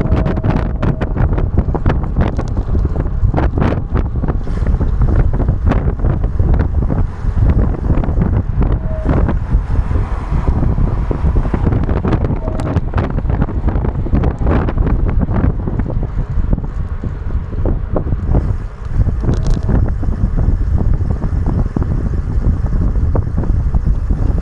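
Wind buffeting the microphone of an action camera while riding, a loud, steady low rumble with frequent short knocks and taps throughout.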